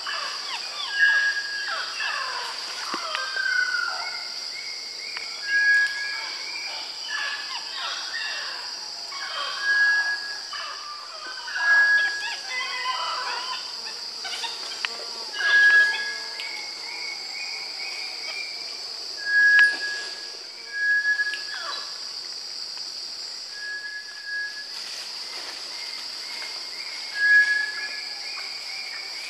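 Amazon forest ambience: a steady high insect drone, with a short, level bird whistle repeated every few seconds. Other brief bird calls and rustles come in between.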